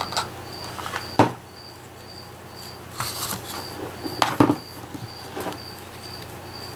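Paper and ribbon rustling with a few sharp knocks, loudest about a second in and again past four seconds, as a layered paper medallion is handled, set down and pressed together. Behind it a short high chirp repeats steadily about twice a second.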